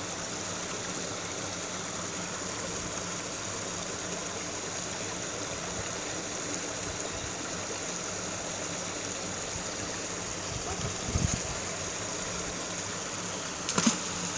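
Steady rush of a small stream with a little waterfall, then near the end a sharp splash as a fishing magnet on its rope lands in the water. A low thump comes a few seconds before the splash.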